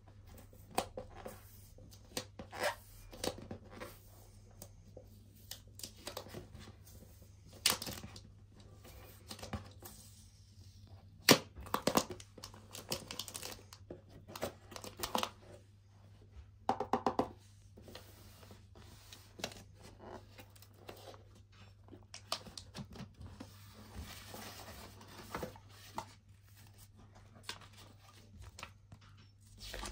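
Packaging of an electric shaver being opened and handled: crinkling, tearing and scattered sharp clicks and taps, with a brief squeak about halfway through.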